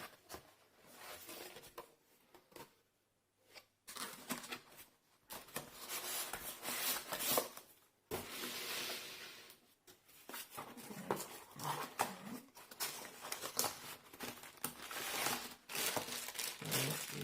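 Packaging being handled as a box is unpacked: rustling, tearing and crinkling of cardboard and plastic wrap, with scattered clicks and knocks. There is a short lull about two to four seconds in.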